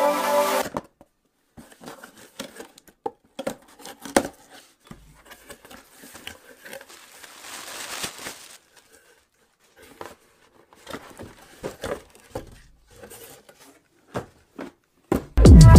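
Packaging being handled by hand: soft rustling and crinkling with scattered small clicks and taps. Background music fades out just after the start and comes back in loudly near the end.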